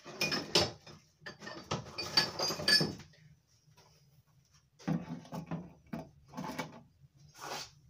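Rummaging through workshop tools and offcuts: an irregular run of knocks and light metallic clinks, a few of them ringing briefly. After a pause of about two seconds, a second cluster of knocks and clinks follows.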